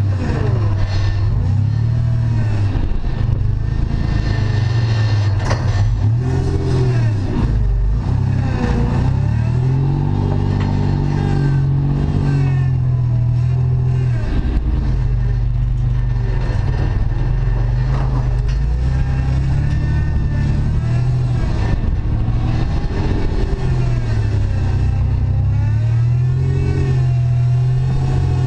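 A 3rd-gen Toyota 4Runner's engine running loud, revs rising and falling as it crawls over rocks, with scattered knocks and clatter from the rig.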